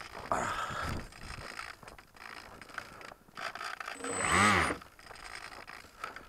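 Electric motor of an RC plane briefly throttled up and back down, a whine that rises and falls in pitch: a shorter, weaker blip just after the start and a louder one about four seconds in.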